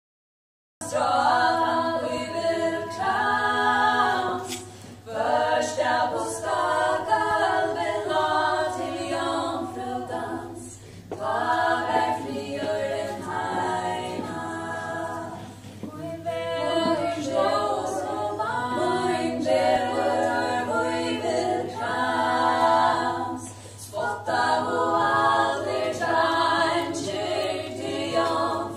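Five women singing a cappella in close harmony, live through microphones, in phrases broken by short pauses. The singing starts about a second in, and a steady low hum runs beneath it.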